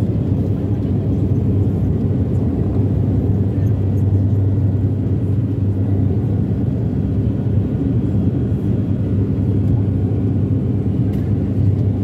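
Steady drone of an ATR 72-500's twin PW127 turboprop engines and propellers heard inside the passenger cabin. It is a deep, even hum with a faint steady whine above it.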